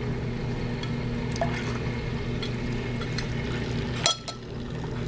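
Dirty wash water running out of a kitchen sink basin, a steady watery flow. A sharp clink comes about four seconds in.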